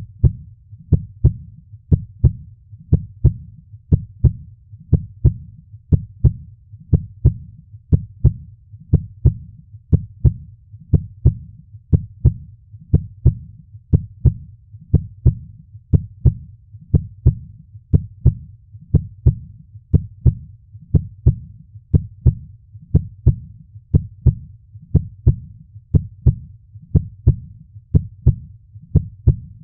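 Heartbeat sound effect: a steady lub-dub rhythm of low thumps, about one double beat a second, even and unchanging throughout.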